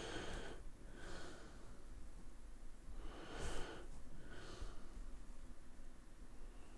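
A person breathing faintly close to the microphone: two breaths in and out, about three seconds apart.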